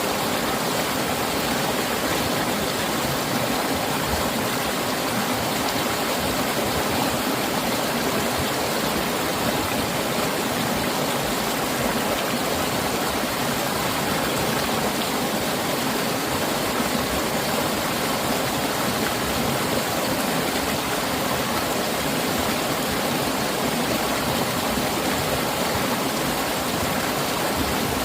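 Mountain valley stream rushing steadily over rocks, an even unbroken wash of water.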